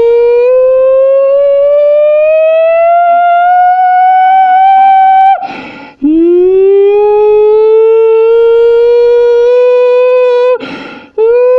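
A person imitating a tornado siren with their voice through a cardboard toilet-paper tube, loud and echoing in a small bathroom. Each wail starts low, slides up and then holds steady. There are two long wails with a quick breath between them, and a third wail begins near the end after another breath.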